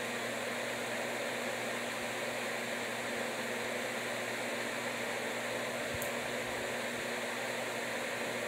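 Steady rush of air with a low electric hum from a running fan-type electric blower, unchanged throughout.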